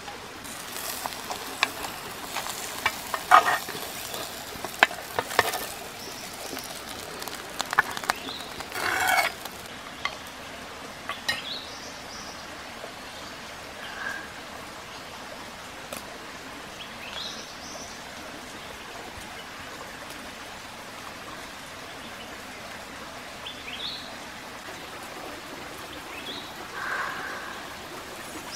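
A spoon scraping and clattering against a clay pan as cooked fish eggs and duck eggs are stirred and scooped out. This goes on through roughly the first ten seconds, loudest about three and nine seconds in. A steady stream runs underneath throughout.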